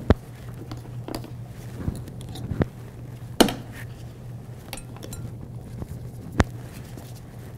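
Kitchen handling noise: scattered clinks and knocks of glass jars, bottles and utensils being picked up and set down on a counter, with a sharp knock right at the start and another about six seconds in, over a steady low hum.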